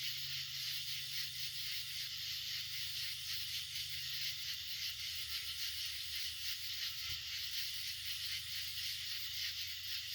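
A chorus of night insects, crickets and katydids, keeping up a dense, steady high-pitched buzzing trill, with a low rumble underneath.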